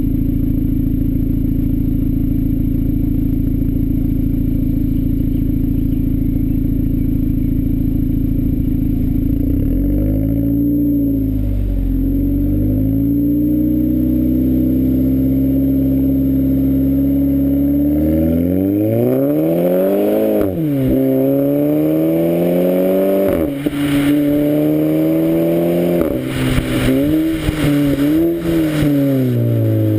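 Volkswagen Golf 5 GTI Edition 30's turbocharged four-cylinder heard at the tailpipe of a Friedrich Motorsport aftermarket exhaust with a 200-cell Zeller sports catalytic converter. It idles steadily for about ten seconds, then pulls away and accelerates through the gears, the pitch climbing and dropping at each shift, with short crackles around the later shifts.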